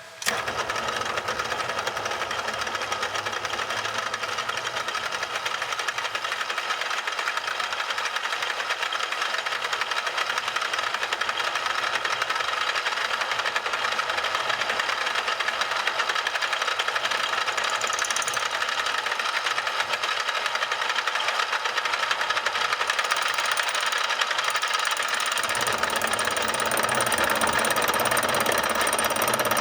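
A power tool switches on abruptly and runs steadily, with a constant high, dense noise. A deeper rumble joins it near the end.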